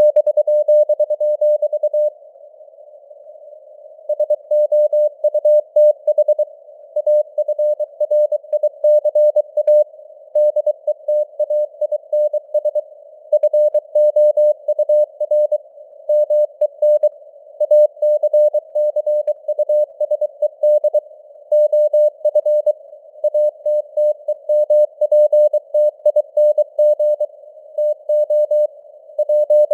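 Morse code (CW) sent at 23 words per minute: a single mid-pitched tone keyed on and off in dots and dashes, over a narrow band of simulated radio hiss. There is a pause of about two seconds shortly after it begins.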